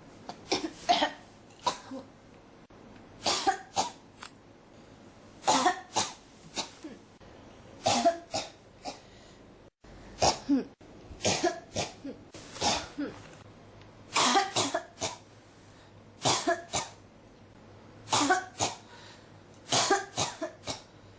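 A person coughing in repeated short fits of two to four coughs each, a new fit about every two seconds.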